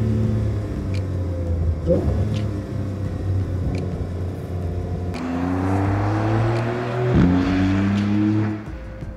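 Porsche 911 Carrera GTS's 3.0-litre twin-turbo flat-six running under load. It holds a fairly steady note, then from about five seconds in climbs in pitch as the car accelerates. The note drops sharply at a gear change about seven seconds in, climbs again, and fades away near the end.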